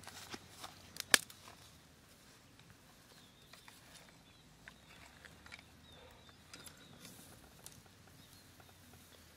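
Light scattered clicks and rustles of dry sticks, twigs and grass being handled at a smouldering campfire, with one sharp snap about a second in.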